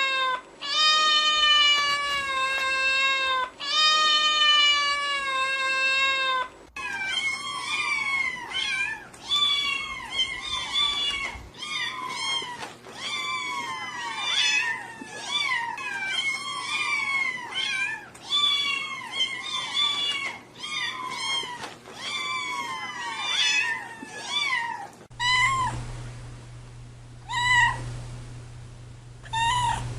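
Cats meowing: three long drawn-out meows that fall slightly in pitch, then a different cat giving a rapid run of many short meows, about two a second, and near the end a few short meows over a low steady hum.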